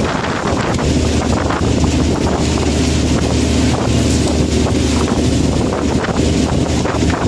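Fishing boat's engine running with a steady low hum, with wind buffeting the microphone.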